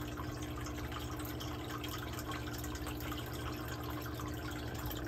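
Steady low hum with a light trickle of running water.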